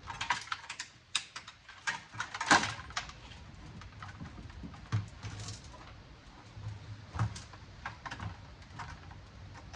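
Irregular clicks, scrapes and knocks of hand tools prying at a circuit board and its metal parts, with the loudest knock about two and a half seconds in.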